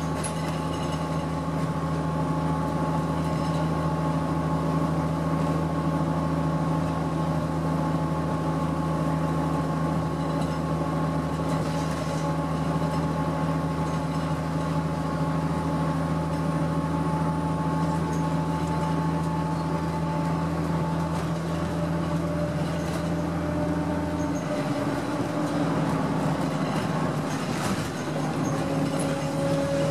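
Interior sound of a 2006 Orion VII diesel city bus (Cummins ISL engine, Allison five-speed automatic) cruising: a steady engine drone under road noise, with a couple of steady whining tones on top. About 24 seconds in the low engine note drops and changes, and a new higher whine comes in near the end.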